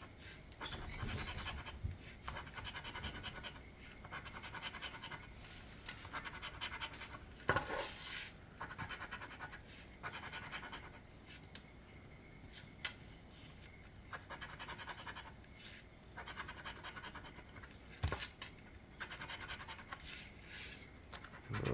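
Scratching the coating off an instant lottery scratch ticket in repeated short strokes, with a few sharp taps, the loudest near the end.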